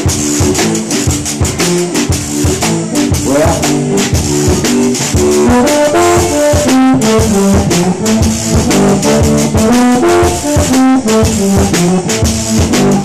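Zydeco band playing live: a button accordion carries a quick stepping melody over a drum kit's fast, steady beat, with a shaking, rattling percussion running through.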